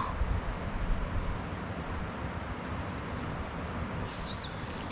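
Small birds chirping faintly now and then, a few short high calls about halfway through and again near the end, over a steady rushing outdoor background with a low rumble.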